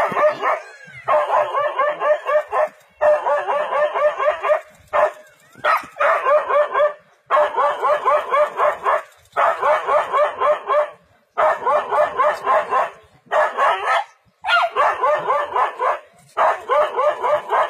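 A dog barking defensively at a leopard in rapid bouts: each bout is about a second and a half of quick barks, with short pauses between.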